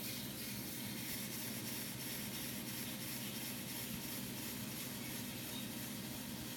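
Steady hiss of a trimming tool shaving clay from a thin porcelain cup turning on an electric potter's wheel, over the steady hum of the wheel's motor.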